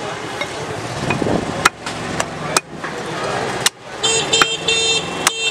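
Steel cleaver chopping goat meat on a wooden log chopping block: about six sharp, irregular chops over street noise. From about four seconds in, a horn sounds in quick repeated beeps.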